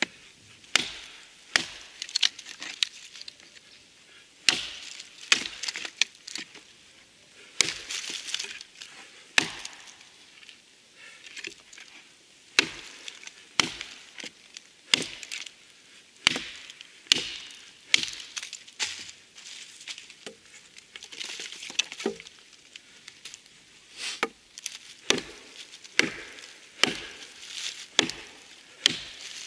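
Hatchet chopping a dry wooden branch held against a log: sharp, separate blows at an uneven pace of about one a second, chipping pieces off the wood.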